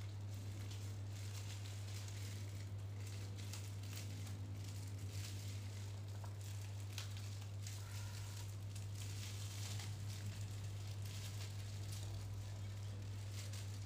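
Faint rustling and scattered light clicks as takeaway bakso is handled and unpacked onto a plate, over a steady low hum.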